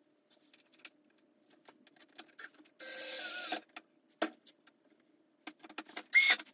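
Cordless drill/driver driving screws in two short whirring bursts, about three seconds in and again near the end, the second louder, with small clicks and knocks of handling between.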